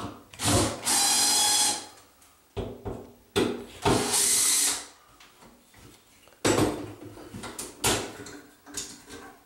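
Cordless drill-driver whirring in two runs of about a second each, backing out the mounting screws of a temporary wall light fixture. Then come a few sharp knocks and clatters as the drill is put down and the fixture is handled.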